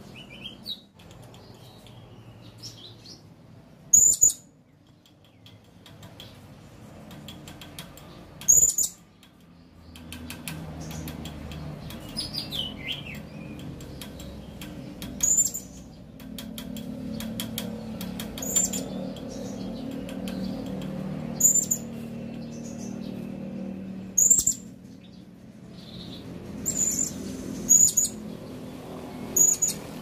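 Blue-crowned hanging parrot (serindit) calling: short, sharp, very high-pitched notes every few seconds, coming closer together near the end. A low steady rumble sits underneath from about a third of the way in.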